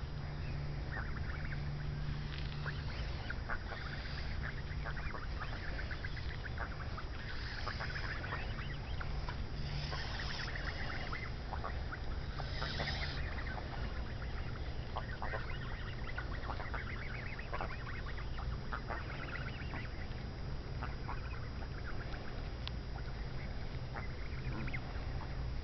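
A flock of young, nearly full-grown Canada geese calling among themselves with short, scattered honks and clucking notes, several overlapping at times.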